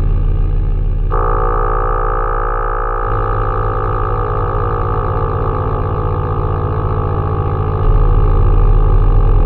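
Synthesized drone from a software modular synthesizer patch of LV2 plugins, including a rotary-speaker emulation and hall reverb: layered low tones held steady. About a second in, a higher cluster of tones comes in and bends slightly in pitch. The bass grows louder near the end.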